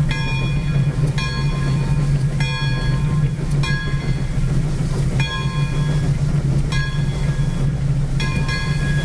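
Pere Marquette 1225, a Lima-built 2-8-4 Berkshire steam locomotive, running with a steady low rumble while its bell rings about once a second.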